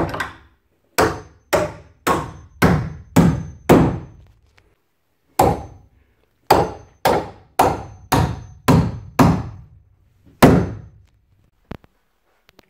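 A Sturnus 13 oz aluminium-handled claw hammer driving nails into timber framing: about fourteen sharp blows, each ringing briefly. They come in two runs of steady strikes roughly two a second, with a pause between the runs and one last blow near the end.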